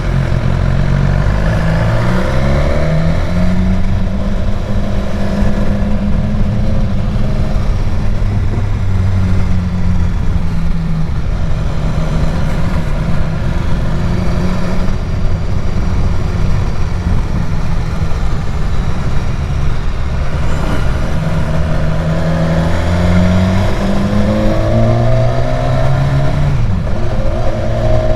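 Motorcycle engine on the move, accelerating through the gears with its pitch rising and dropping at each shift near the start and again from about twenty seconds in, holding a steady cruise between, with steady wind and road noise.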